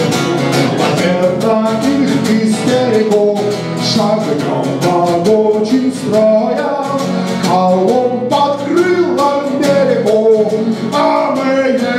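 Live song: a man sings over a rhythmically strummed frame-body silent guitar.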